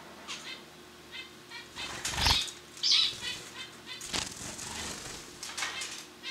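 Gouldian finch fluttering and hopping through artificial grass: quick wing flaps and the rustle of the plastic blades, with two louder flurries about two and three seconds in.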